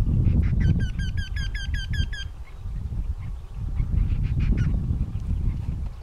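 Eurasian wryneck giving its mating-season call: a run of about nine evenly repeated ringing notes, some five a second, lasting about a second and a half, followed by a few fainter calls. A steady low rumble runs underneath.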